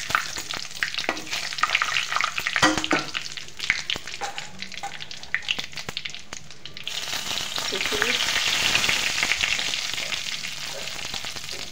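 Cumin seeds and bay leaves crackling in hot mustard oil in a kadhai, with sharp popping. About seven seconds in, the popping gives way to a louder, steadier sizzle as dried red chillies go into the oil.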